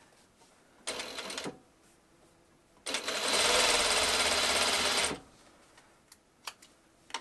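Juki sewing machine stitching in two runs, a short burst about a second in and a longer steady run of about two seconds, sewing a folded fabric square onto a quilt block corner. A couple of faint clicks follow near the end.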